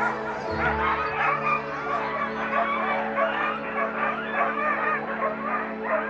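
A team of sled dogs barking and yelping all at once in a dense, continuous chorus of short calls, with background music under it.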